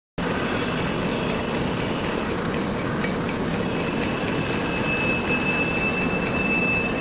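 CNC lathe facing the front face of a part: steady machining noise with a thin, high, steady whine that grows stronger about halfway through.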